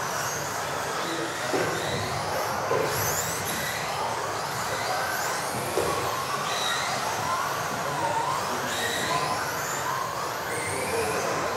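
A pack of electric RC offroad buggies racing: many high motor whines rising and falling in pitch as the cars accelerate and brake, over a steady hiss, with a few brief knocks.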